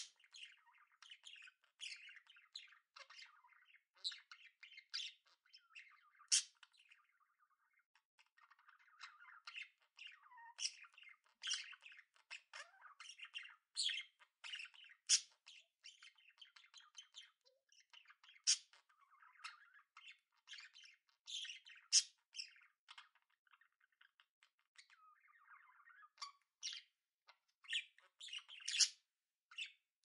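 Budgerigars chattering: a steady stream of short, sharp chirps and squawks, with a few brief lulls.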